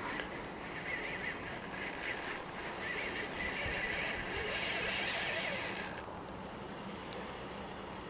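Fishing reel running under load as a hooked pike pulls on the line: a fast, high-pitched mechanical ticking that cuts off abruptly about six seconds in.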